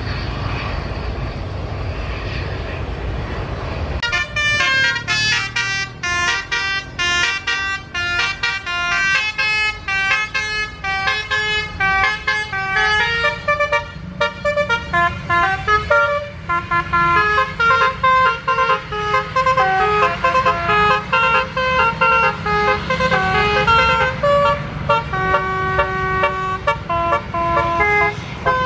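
A jet airliner's engines running with a broad rumble, then from about four seconds in a multi-note musical vehicle horn playing a fast tune of short notes, several a second, over steady engine noise.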